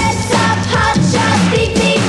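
Electro-rock band music with electric guitar, drums and a woman singing.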